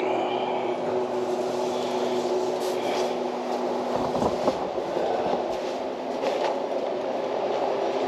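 Car engine idling after a cold start, left running to warm up, with a steady rushing hum. One of its steady tones drops out about four seconds in.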